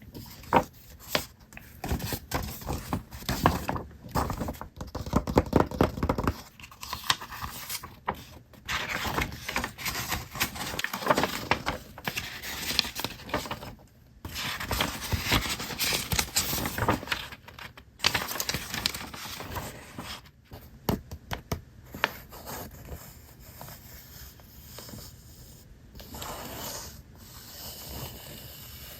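Paper parts of a miniature kit being handled close up: irregular rustling, crinkling and tearing with many small sharp taps, busiest in the first twenty seconds and quieter after about twenty-two seconds.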